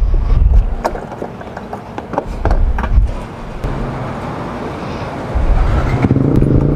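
Motorcycle being refuelled at a petrol pump: knocks and rustling as the nozzle is handled, then a steady hiss of fuel flowing, with a steady mechanical hum that grows louder about five seconds in.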